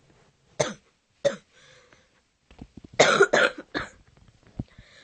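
A person in a coughing fit: a single cough about half a second in and another about a second later, then a quick run of three coughs about three seconds in.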